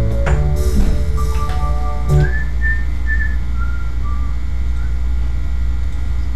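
Synthesizer music from a MIDI keyboard setup: held organ-like chords that break off about two seconds in, followed by a high, thin melody of a few single held notes, over a steady low hum.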